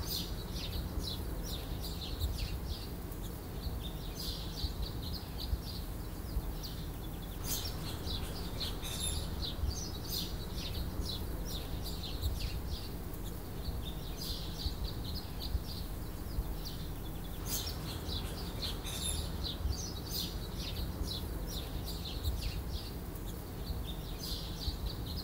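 Small birds chirping in quick repeated runs, over a steady low hum. There are a few faint clicks, about 7, 9 and 17 seconds in.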